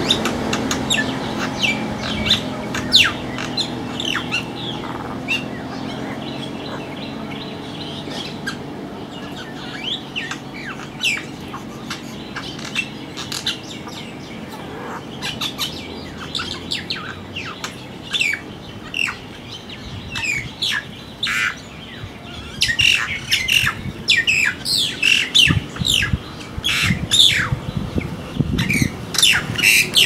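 Common myna calling: a string of short chirps and squawks, scattered at first, then coming thick and fast in the last third. Under the first several seconds is the hum of a passing road vehicle, which fades away.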